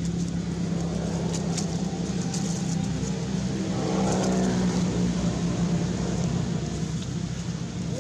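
A motor vehicle's engine running steadily, a little louder about four seconds in.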